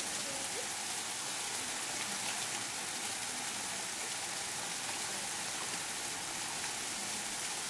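Steady hiss of splashing water, with faint small splashes from little penguins swimming and diving in a shallow pool.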